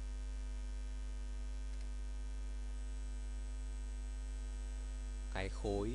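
Steady electrical mains hum in the recording, a low buzz with a comb of higher overtones that does not change.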